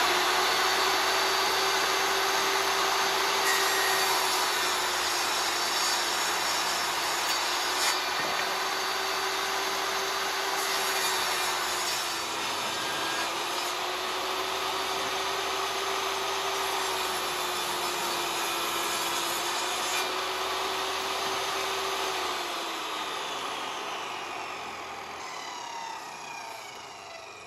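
Jobsite table saw running and ripping wood into thin strips, its motor pitch sagging slightly under each cut. About 22 seconds in it is switched off and winds down with a falling whine.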